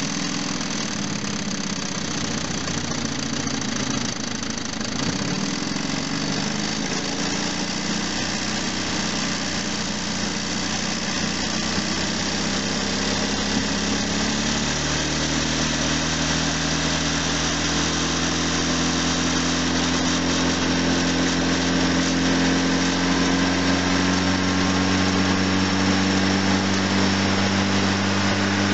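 ZMZ-409 2.7-litre four-cylinder petrol engine running with the knock it is being checked for. The note wavers for the first half, then from about halfway settles steady and slowly rises in pitch.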